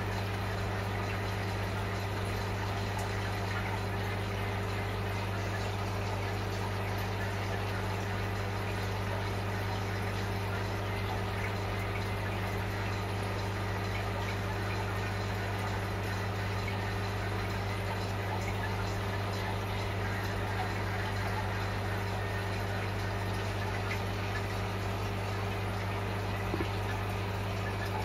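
Aquarium pump humming steadily, with water trickling and bubbling through the tank equipment. One brief tick near the end.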